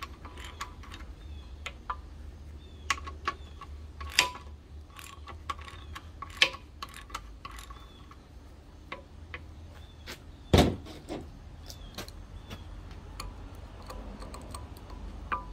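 Ratcheting wrench clicking in short irregular runs as it loosens the bolts of the clamps holding an excavator's hydraulic hard line, with light metal tool clinks and one louder clank about ten and a half seconds in.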